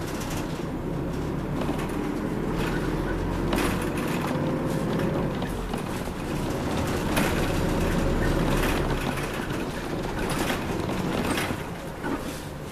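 Inside a moving city route bus: the engine running and tyre and road noise, with a few brief knocks and rattles from the cabin.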